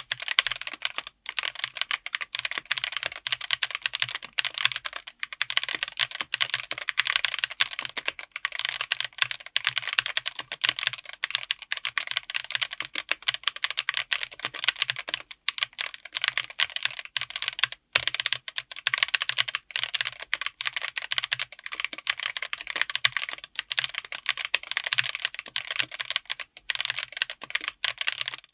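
Continuous fast typing on a mechanical keyboard fitted with Chosfox White Fox linear switches, mounted on an FR4 plate in an aluminium 60% case: a dense stream of key bottom-outs and returns.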